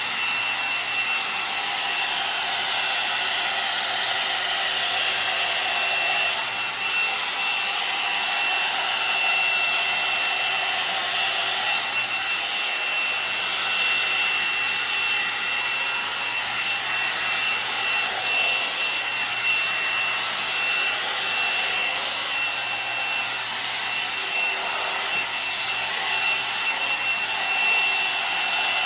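Kommok hot air brush (a hair dryer brush) running steadily while drying hair: an even rush of blown air with a thin, high fan whine held at one pitch.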